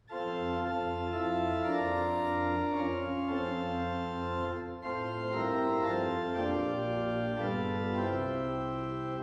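Organ music: slow held chords that change every second or so over a sustained bass line, starting abruptly.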